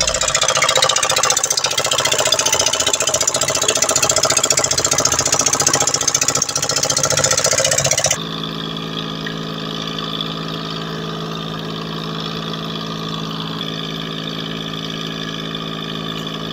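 Fishing boat's engine running steadily, with a rushing hiss over it. About eight seconds in the sound cuts abruptly to a steadier, lower engine hum.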